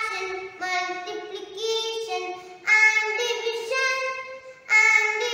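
A young boy singing a rhyme, in short phrases of held notes.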